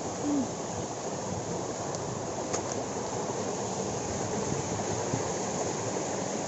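Stream water rushing over rocks, a steady rush. There is a short low hum-like tone about a third of a second in.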